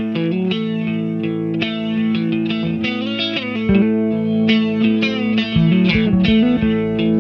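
Soundtrack music led by guitar, with held notes and plucked chords and no singing.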